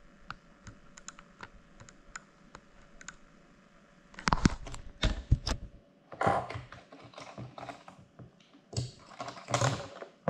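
Handling noise on a GoPro camera: a few light clicks as fingers work at the camera, then from about four seconds in a run of loud knocks, taps and rustles right at the camera's microphone.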